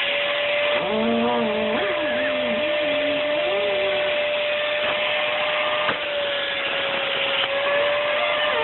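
Upright vacuum cleaner running steadily, a constant motor whine over a rushing of air. A person's voice rises and falls over it between about one and four seconds in.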